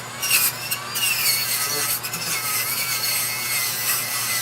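Dremel rotary tool spinning stacked nylon abrasive wheels against a small wooden workpiece: a scratchy abrasive hiss over a motor whine whose pitch wavers up and down as the wheel is pressed on and eased off.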